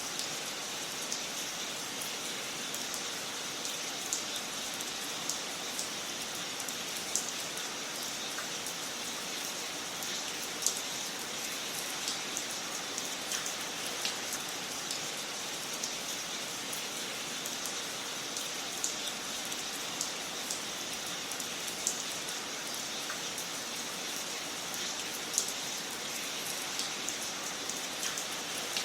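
Wood fire crackling in a fireplace: a steady hiss with scattered sharp pops and snaps.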